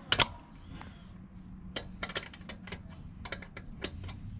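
Metal tools clicking and clinking against the minibike's rear axle and chain adjusters while the axle is loosened: irregular sharp clicks, with two louder ones near the start.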